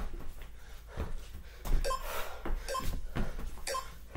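Thuds of hands and sneakered feet landing on a wooden floor during burpees, several dull knocks spaced about half a second to a second apart.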